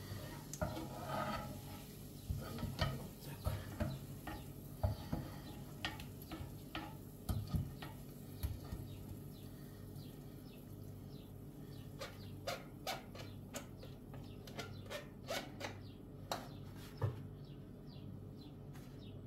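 Sporadic light clicks and taps of a frying pan being wiped out with a towel and refilled with fresh oil, over a steady low hum.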